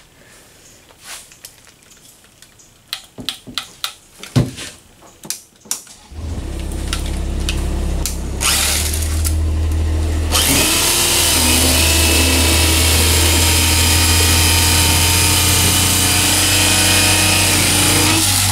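A few sharp clicks and knocks, then an electric fillet knife starts about six seconds in and runs with a steady motor hum. It gets louder and buzzier from about ten seconds in as its blades saw through the side of a bowfin to cut a fillet.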